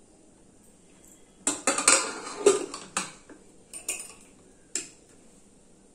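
Aluminium pressure cooker lid being fitted and closed: a quick run of metal clinks and clatters about a second and a half in, lasting over a second, then a few lighter clicks and a single knock near the end.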